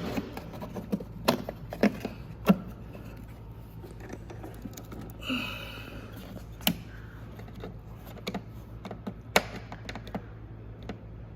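Hard plastic clicks and knocks as the on/off switch panel is handled and pushed into the saw's housing: scattered sharp clicks, several close together in the first few seconds, a brief scrape about five seconds in, then single clicks a few seconds apart.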